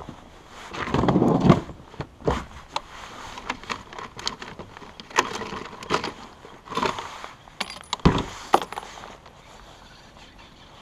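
Rummaging in a kayak's round deck hatch: a plastic tackle box and gear clatter and knock in a scatter of sharp clicks, with a louder rustle about a second in.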